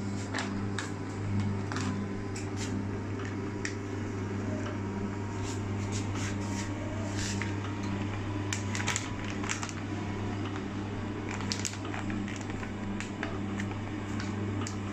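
Horizontal continuous band sealer running with a steady low motor hum while a bag is fed through it, with scattered crackles and clicks of plastic being handled.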